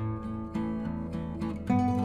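Background music: acoustic guitar playing held, plucked notes, getting louder near the end.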